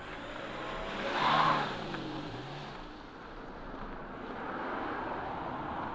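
A car passing close by: its tyre and engine noise swells to a peak about a second and a half in, and the engine pitch drops as it moves away. A second vehicle swells more faintly near the end.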